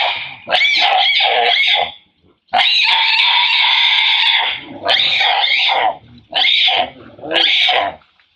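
Female long-tailed macaque screaming in fear at a big male trying to take her mango: a series of loud, high-pitched screams in about six bouts, the longest lasting nearly two seconds.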